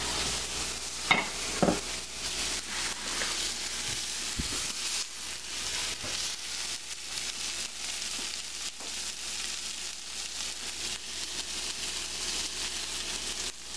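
Breaded cod fillets sizzling steadily in a nonstick frying pan as they are turned with a spatula and fork halfway through cooking, after three to four minutes on the first side. Two short knocks come about a second in.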